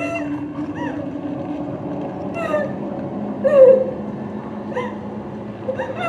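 Eerie horror-trailer sound design: a low steady drone under short, wavering rising-and-falling wails that recur about once a second, the loudest a lower one a little past the middle.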